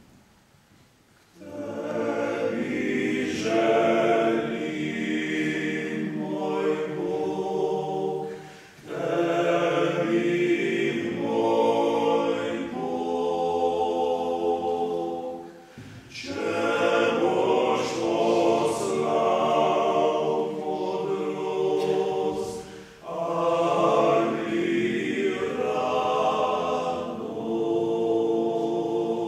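Male octet singing a cappella in harmony. The singing starts about a second and a half in and runs in four phrases of about seven seconds each, with short breaks between them.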